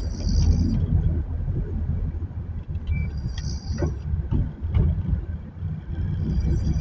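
Low, steady rumble of a car driving through floodwater. A high-pitched ringing sound comes and goes three times, about three seconds apart, with a few sharp clicks.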